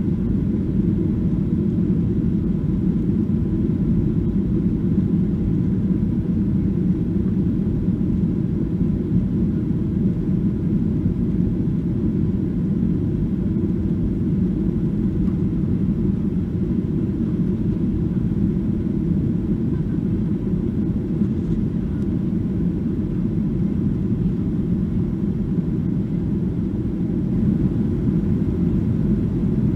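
Steady low rumble inside the cabin of a Boeing 737-800 in flight: its CFM56-7B jet engines and the airflow over the fuselage, with a faint steady tone above the rumble.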